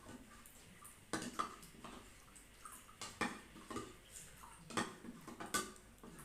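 A spoon stirring a honey, lime and warm-water mixture, clinking against the side of the container in irregular taps, with a few louder clinks.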